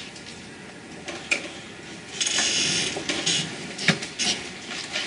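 Computer keyboard being typed on: a run of irregular clicks and clatter, busiest a little past two seconds in.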